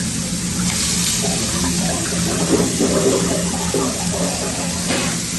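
Meat sizzling on a hot flat-top griddle: a steady hiss over a constant low hum, flaring up brighter about a second in.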